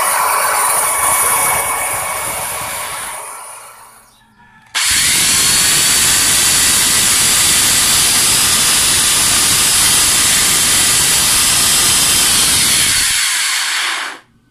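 Makita electric planer motor running unloaded at full speed with a sparking armature, then winding down over a second or two after switch-off. A few seconds in, it starts again abruptly and runs steadily, now with no sparking, then stops abruptly near the end.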